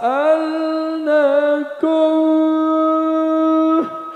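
A man's voice singing long held notes of a slow Arabic devotional chant through a microphone: the note slides up at the start, wavers about a second in, breaks briefly, then is held steady and stops just before the end.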